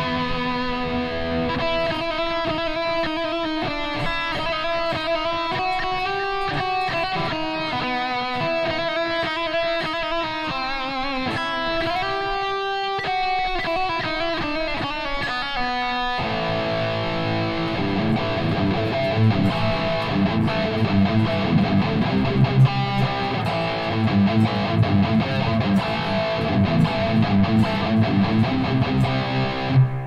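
Electric guitar played through a Valeton GP-100 multi-effects pedal. It plays sustained single-note lead lines with notes bent up and down, then about halfway through changes to lower, denser chordal riffing.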